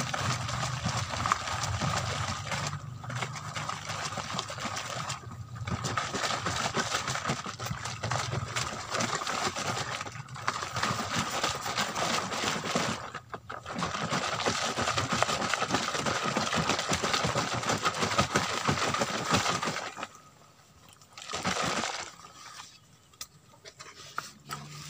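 Liquid goat-manure fertilizer sloshing inside a plastic jerry can as it is shaken by hand to mix the ingredients, with a few short breaks; the shaking stops about 20 seconds in.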